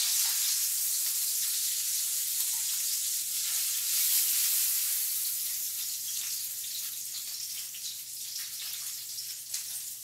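Hot oil sizzling in a frying pan after searing salmon fillets, slowly dying down, with a few light spatula scrapes against the pan.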